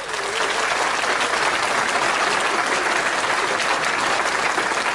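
Audience applause: many hands clapping steadily.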